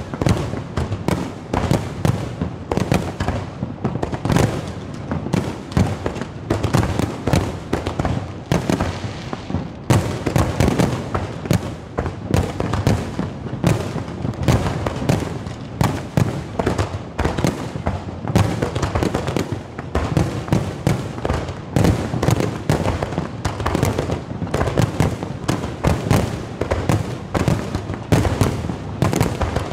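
Fireworks display: aerial shells bursting in a rapid, unbroken barrage of bangs and crackles, many a second. The reports turn sharper and brighter about a third of the way through.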